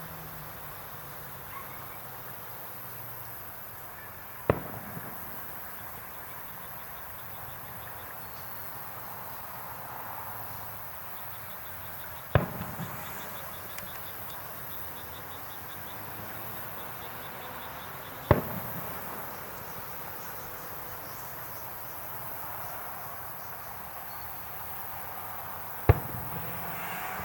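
Fireworks shells bursting: four sharp bangs six to eight seconds apart, each with a short tail. Between them, insects chirp steadily with a fast, even ticking.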